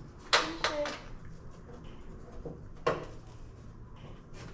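Sharp knocks and clunks of parts being handled: a loud one about a third of a second in with a smaller one just after, and another near the three-second mark.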